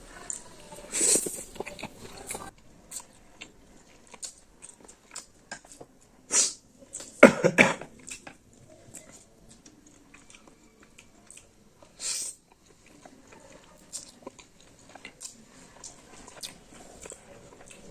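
Close-miked eating: chewing and biting with small wet clicks and lip smacks, broken by a few louder breathy bursts, the loudest about halfway through.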